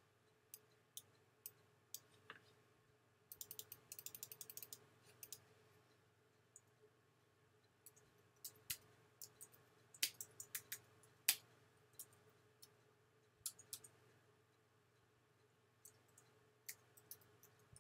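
Faint computer keyboard keystrokes, clicking irregularly in small clusters as a line of text is typed, with a quick run of rapid clicks for about a second and a half some three seconds in. A faint steady hum lies underneath.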